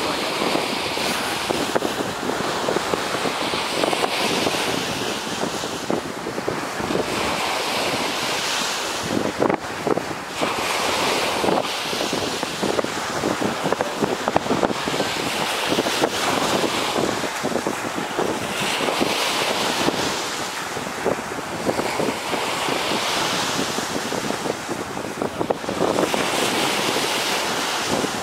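Surf washing onto a sandy shore, swelling every couple of seconds, with wind buffeting the microphone.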